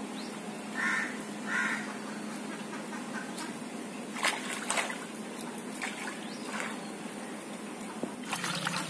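A bird calls twice about a second in, and a few light knocks and small splashes follow at the pond's edge. Near the end, water starts splashing as a bamboo basket of fish is dipped into the pond to wash them.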